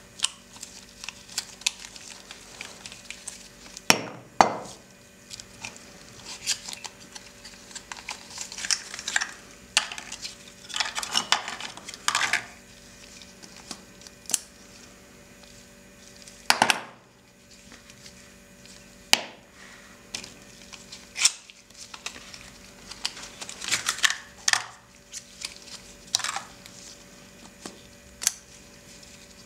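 Small cosmetic containers (a nail polish bottle and lipstick cases) being handled and opened by gloved hands. Scattered sharp clicks and taps as they knock and set down, with brief rustling, over a faint steady hum.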